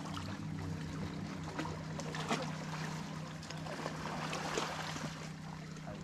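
Small sea waves lapping and trickling against shoreline rocks in soft, irregular splashes, over a steady low hum.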